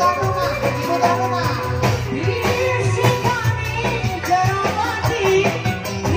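Live dangdut band music played loud through PA speakers: a steady bass and drum beat with guitar, and a woman singing the melody into a microphone.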